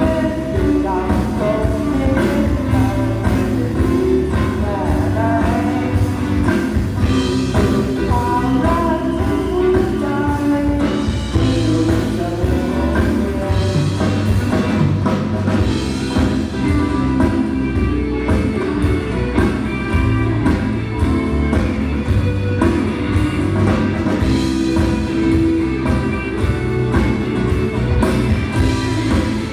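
Loud amplified rock-tinged pop music with a singing voice, drums and guitar, played through a stage sound system during a sound check.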